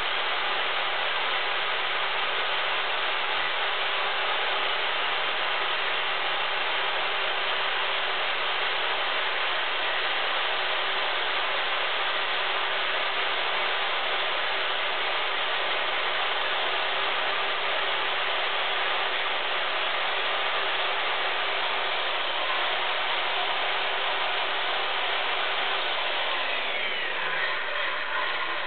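Craftsman 2-1/8 hp circular saw with a thin, fine-tooth blade running steadily as it cuts through a wooden board, then spinning down with a falling pitch near the end.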